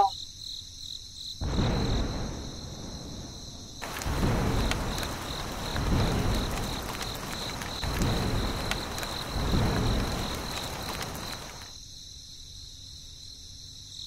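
Rain falling. It starts lightly about a second and a half in, grows heavier about four seconds in with low rumbling swells every couple of seconds, and eases off near the end. Under it runs a steady high chirring.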